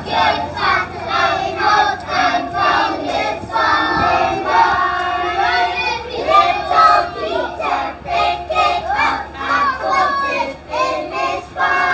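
A group of young children singing together in unison, loud and rhythmic, with some longer held notes.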